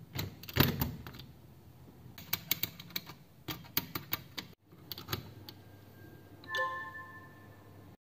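Sharp clicks and knocks of hard plastic as a universal travel adapter is pushed into a power-strip socket, followed by a screwdriver tip clicking and scraping against the adapter socket's safety shutter. A brief pitched tone sounds near the end.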